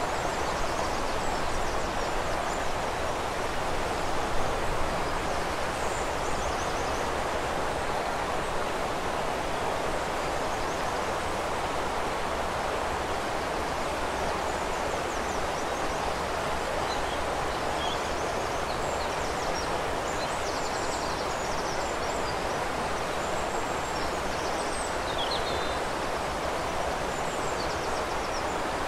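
Steady rush of flowing river water, with birds chirping faintly and now and then above it, more often in the second half.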